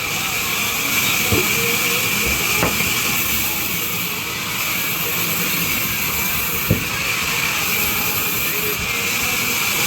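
Industrial vertical band saw running and cutting a large wooden log: a steady hiss with a high, even tone, broken by three short sharp knocks.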